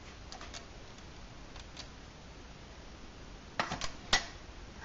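Lidded aluminium cooking pot being lifted off a soda-can alcohol stove and set down on a workbench: a few light metallic clinks, then a quick cluster of clatters and one sharp clink near the end.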